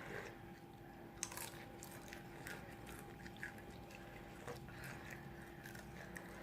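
Faint chewing of crunchy fried food, with scattered short crunches and clicks, over a steady low hum.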